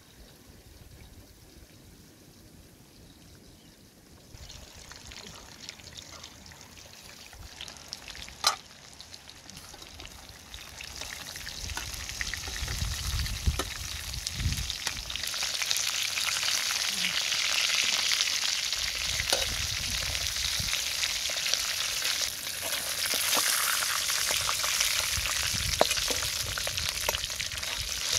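Duck pieces and pineapple frying in oil in a wok over a wood fire, a steady sizzle with small clicks of a metal cleaver stirring and scraping the pan. It starts faint after a quiet few seconds, with one sharp click, and grows much louder from about ten seconds in.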